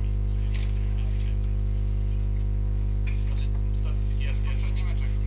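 Loud, steady electrical mains hum in the recording's audio, a low buzz with a ladder of overtones that never changes. Faint scattered clicks and room noise sit underneath it.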